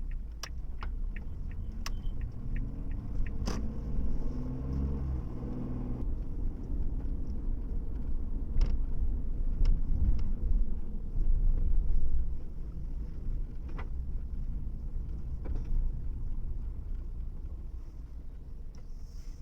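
Car driving with a steady low road and engine rumble, and a string of sharp clicks in the first few seconds.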